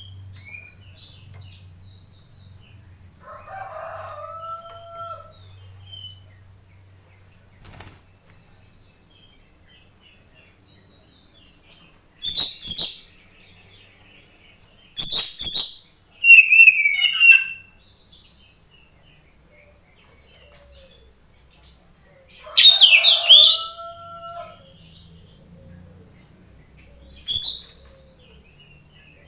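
Caged oriental magpie-robin (kacer) giving loud, short high-pitched bursts of song and calls, about five spaced across the stretch, with fluttering of its wings and quieter lower calls between.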